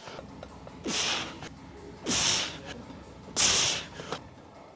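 Three sharp, forceful breaths, about one every second and a bit: a lifter breathing hard through a set of heavy barbell back squats at 220 kg.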